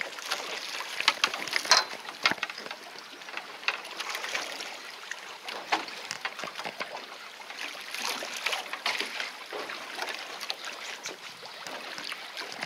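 Sea water lapping and splashing against the side of a small fishing boat, with scattered light clicks and knocks at irregular moments.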